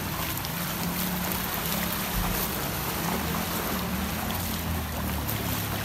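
Shallow floodwater sloshing and splashing as people wade through a flooded street, over a steady low hum.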